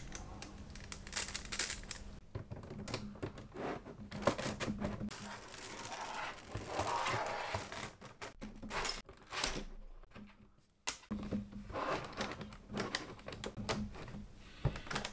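Plastic LEGO pieces clicking and rattling in irregular bursts of small clicks as they are handled and pressed together, with a brief silent gap about ten seconds in.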